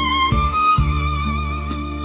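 Slow instrumental music: a held, wavering melody line that moves up to a new note about a third of a second in, over low sustained bass notes.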